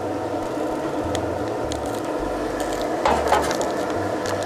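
Hands sprinkling dry rub onto a raw chuck roast and patting it in, with soft taps and a couple of louder pats about three seconds in, over the steady hum of a running Pit Boss pellet smoker.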